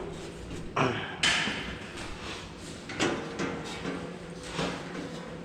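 Several separate knocks and clunks, about four in all; the loudest comes a little over a second in and rings on briefly.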